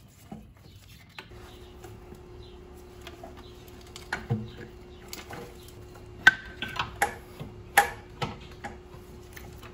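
Clicks, clunks and knocks of metal and hose as an AC compressor is worked out of a car's engine bay by hand, with a few sharper knocks in the second half. A faint steady hum runs underneath from about a second in.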